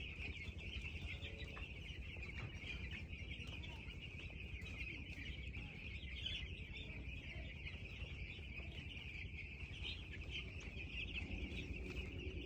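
A flock of poultry-farm chickens peeping and clucking in a dense, steady chorus of many overlapping high chirps, over a low rumble.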